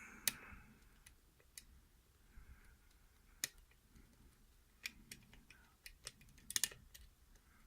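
Lock pick working the spool pins of a Russwin mortise cylinder: light, sparse metallic clicks and faint scraping, with a quick cluster of clicks near the end.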